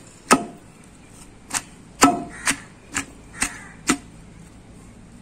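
Wooden pestle pounding small onions into a coarse green sorrel-leaf (gongura) chutney in a stone mortar: seven knocks, about two a second, the last about four seconds in.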